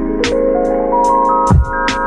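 Background music: an electronic track with held synth notes stepping upward in pitch, a kick drum about one and a half seconds in, and light ticking percussion.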